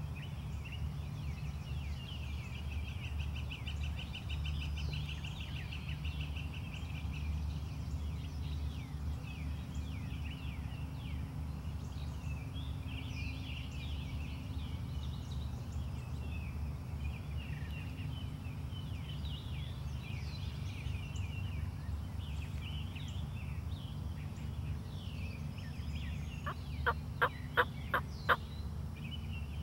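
Wild turkey gobbler calling in a quick run of about six sharp, loud notes near the end, over songbirds chirping and trilling and a low rumble of wind.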